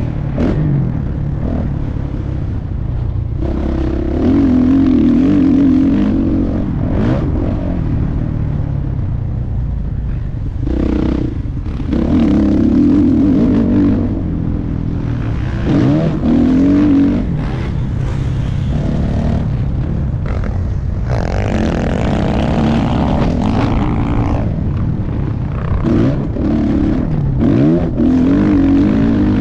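Motocross dirt bike engine on board, revving hard and backing off over and over as the bike is ridden over the track's jumps and berms, its pitch climbing and falling, with wind rushing over the microphone.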